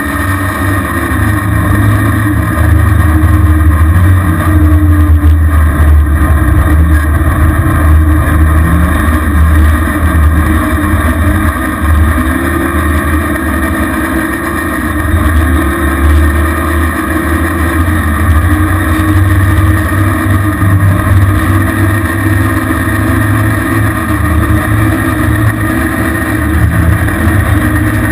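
ATV engine running while being ridden through snow, its pitch rising and falling again and again as the throttle is opened and eased, over a heavy low rumble.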